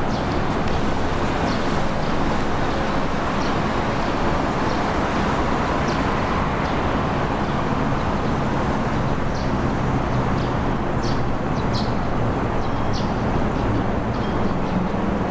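Steady outdoor city traffic noise, an even rush without a break, with a few short, high chirps or ticks scattered through it.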